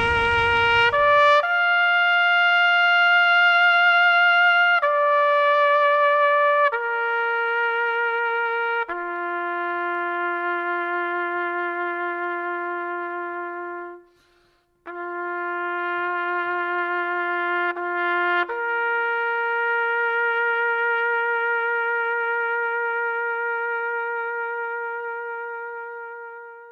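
Solo trumpet playing a slow melody of long held notes with a slight vibrato, breaking off briefly about halfway through, then fading out on a final long note.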